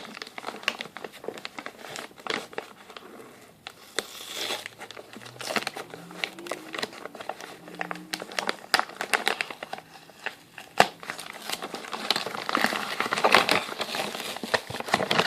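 Gift-wrapping paper crinkling and rustling as a wrapped box is unwrapped by hand, in many small irregular crackles that grow busier and louder near the end.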